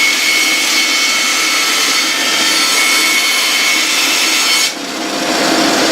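Inca bandsaw sawing through a large wooden disc on a circle-cutting jig: a steady hiss of the cut with a high whine. About three-quarters of the way in, the cutting noise cuts off suddenly and only the saw's lower running sound carries on.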